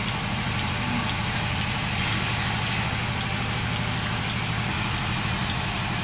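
A portable milking machine's vacuum pump running steadily with a low, even hum.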